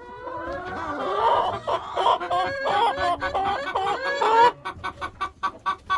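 Domestic chickens clucking and squawking loudly together, several overlapping calls jumping in pitch, then a quick run of short, evenly spaced clucks near the end.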